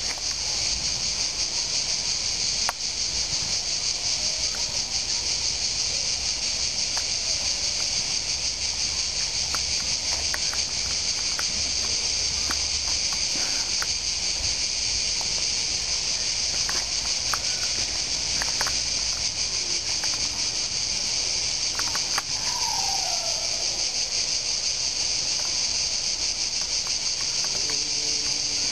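A dense insect chorus shrilling continuously at a steady level, a high, unbroken buzz without pauses.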